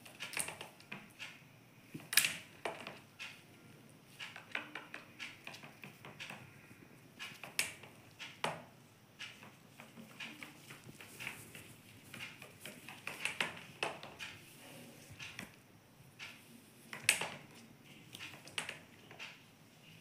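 Indian ringneck parakeet tapping its beak against a mirror and the wooden board: irregular sharp clicks and taps, the loudest about two seconds in and again near the end.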